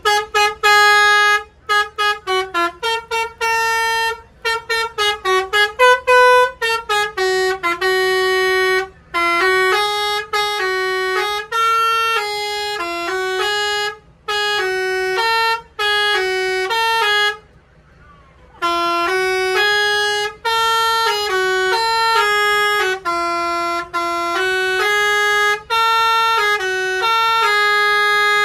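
Bus telolet multi-trumpet air horn playing a melody. It starts with a quick run of short staccato notes, then plays longer held notes, with a brief pause about two-thirds of the way through.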